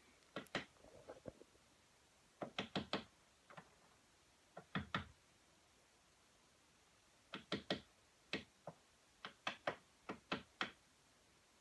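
Woodpecker pecking at the wooden log wall of a cabin. Groups of two to four sharp, faint knocks come every second or two, like someone knocking on a door.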